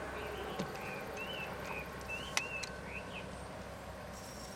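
A bird chirping: a string of short rising-and-falling calls over a faint steady hum, with one sharp click about halfway through.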